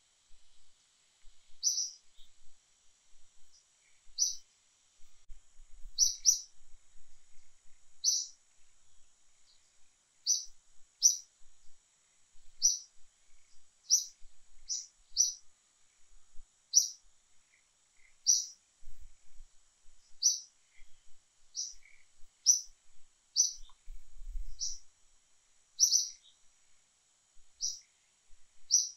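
A small bird chirping: short, high, single notes repeated about every second or two, over a faint steady high hiss.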